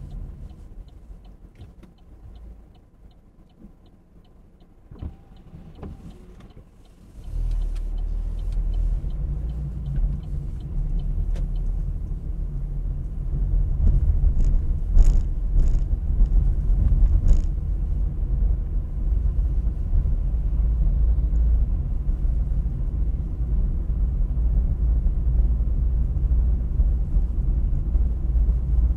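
Car driving, heard from the car: at first it runs quietly with a light regular ticking, then about seven seconds in the engine and road rumble rise sharply as it speeds up, and stay loud and steady.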